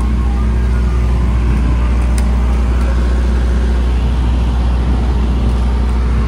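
Ice cream truck's engine running close by, a steady low rumble with no change in pitch.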